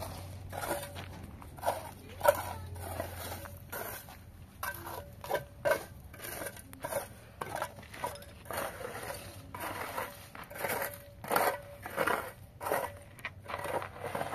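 Gravel and broken cinder-block rubble being scraped up by hand over a dirt floor: irregular scrapes and clinks of small stones, getting busier and louder in the second half.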